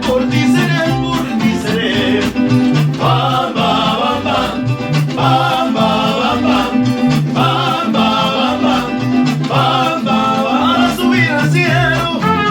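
A mariachi band playing and singing, with sung phrases over a steady, repeating bass line.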